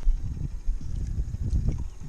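Wind buffeting the microphone: a low, irregular rumble that swells and dips in gusts.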